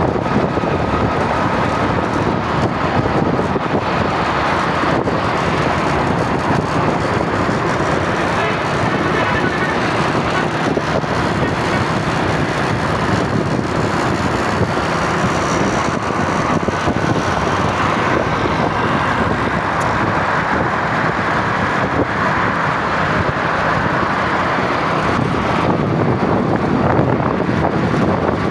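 Steady road and wind noise from a moving vehicle, with no clear changes.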